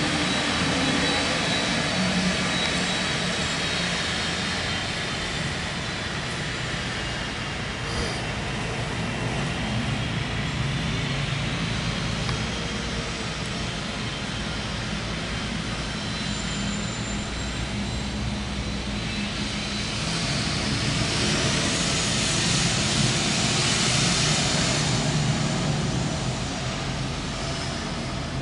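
Business jet's turbofan engines whining steadily as it rolls along the runway, with a rushing hiss building and growing louder about twenty seconds in.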